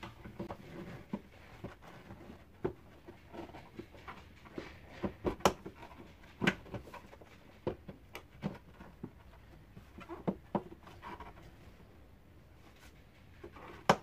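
Scattered hard plastic clicks and knocks as the red plastic top cover of a Bosch Powermax vacuum cleaner is handled and fitted back onto its body. The knocks come irregularly, thicker around the middle, with one sharp click near the end.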